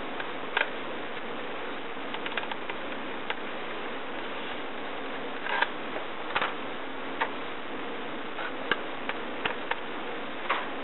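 Scattered small clicks and taps of a Phillips screwdriver and tiny 2-56 screws as the screws come out of a head-mounted display's shell, over a steady VHS tape hiss.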